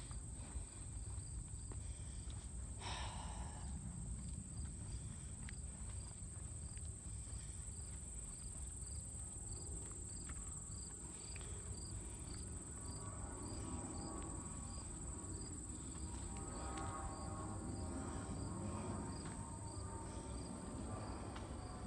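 Insects chirping: a short regular chirp about one and a half times a second over a steady high-pitched buzz, with a low rumble beneath.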